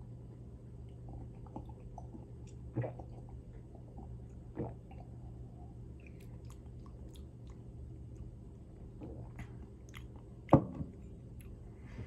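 A person swallowing carbonated energy drink from a glass in several quiet gulps, with faint mouth clicks over a low steady hum. A louder thump comes near the end.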